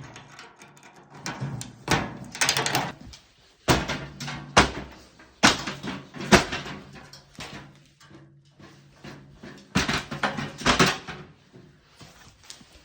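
A PC case being smashed: a series of loud, irregular blows and crashes with clattering in between, quieter for a couple of seconds past the middle.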